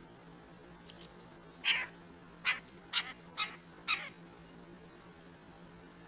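Red-bellied woodpecker giving five short calls in quick succession, starting a little under two seconds in and ending about two seconds later.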